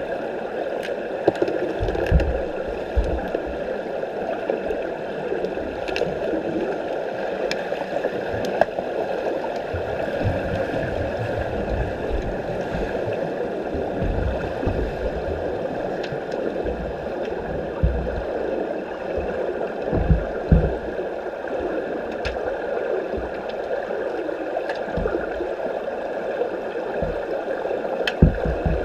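Swimming-pool noise heard underwater during underwater hockey play: a steady muffled wash of moving water, with scattered sharp clicks and several brief low thumps.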